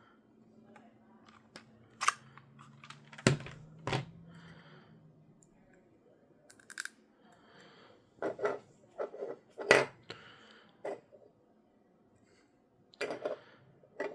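Scattered clicks, taps and knocks of small plastic parts of a Nintendo Switch Pro Controller and a screwdriver being handled during disassembly, with the sharpest knocks about three seconds in and near ten seconds in.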